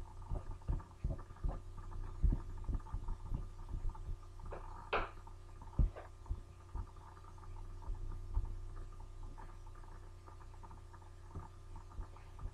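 Steady low electrical hum, with scattered soft low thumps and a few sharper clicks.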